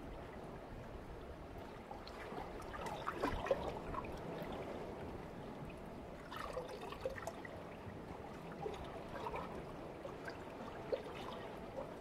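Calm sea water lapping and gurgling among shoreline rocks, with small splashes clustered about three seconds in and again around six to seven seconds.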